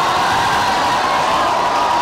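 A protesting crowd booing: many voices join in one long, steady 'hooo' of disapproval.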